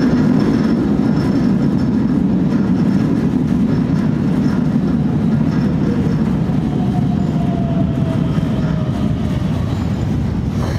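Keikyu 600 series electric train pulling into the platform, its wheels and running gear making a steady, loud rumble that eases as it slows. A faint whine falls in pitch in the second half as it brakes.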